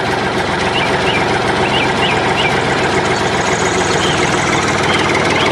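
Tractor engine running steadily with a fast, even pulse, and a few short high chirps over it.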